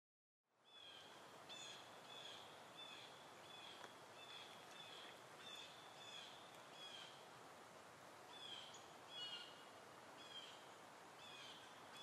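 Faint outdoor hiss with a small bird repeating one short, high call note, about three every two seconds, pausing briefly about two-thirds of the way through.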